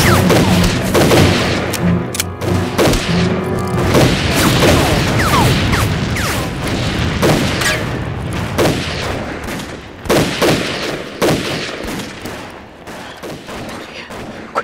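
Film battle sound effects: dense rifle and machine-gun fire with explosions, mixed over dramatic music, dying down near the end.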